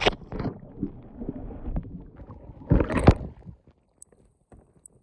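A phone's microphone going under river water: muffled knocks and gurgling, a loud watery rush about three seconds in, then muted near quiet.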